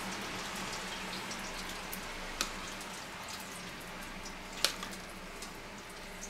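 Metal spoon scooping wet coleslaw out of a plastic tub, with small moist clicks and two sharper taps of the spoon against the tub about two seconds apart, over a steady hiss.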